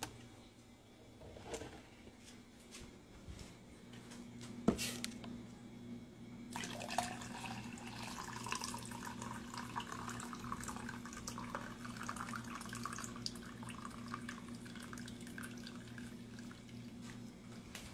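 A click and a steady low electrical hum starting, then water running from a tap for about ten seconds.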